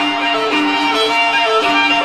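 The show's instrumental theme music: a melody of held notes that changes pitch every half second or so.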